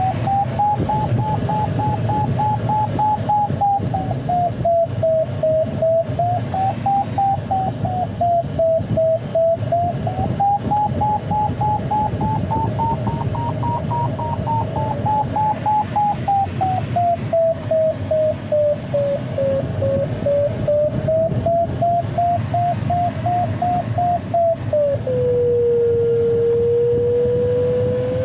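ASK 21 glider's audio variometer beeping rapidly, its pitch rising and falling every few seconds as the lift strengthens and weakens in a climb; about 25 s in the beeps give way to a lower unbroken tone, the variometer's signal for sink. A steady rush of airflow over the cockpit runs underneath.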